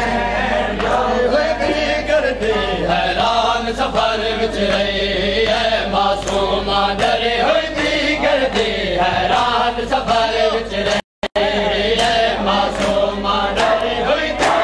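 Men chanting a Shia lament (nauha) in a steady chant, with rhythmic chest-beating (matam) slaps landing about every two-thirds of a second. The sound cuts out completely for a moment about three-quarters of the way through.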